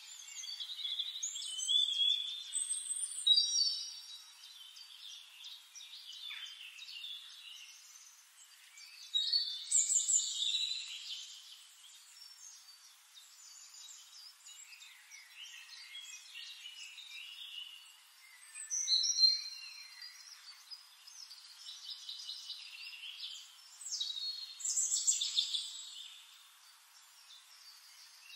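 Birds chirping and twittering, with louder bursts of song every several seconds and quieter chirps between.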